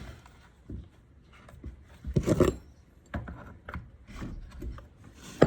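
Stihl MS-162 chainsaw being shaken and handled with water in its cylinder: a series of irregular rasping rubs and knocks, the loudest about two seconds in and a sharp knock near the end.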